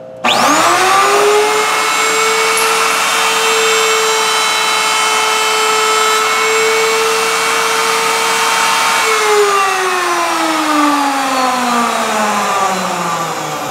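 Table-mounted router switched on and spinning up with a quickly rising whine. It runs steadily while a wooden bar is fed past its profile bit. About nine seconds in it is switched off and winds down with a steadily falling whine.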